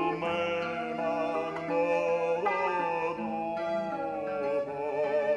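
Live acoustic ensemble music: a violin plays a melody with vibrato over acoustic guitar accompaniment.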